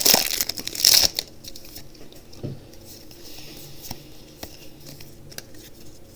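Foil booster pack wrapper crinkling and tearing open, loudest in about the first second, followed by quieter rustling and light clicks as the cards are handled.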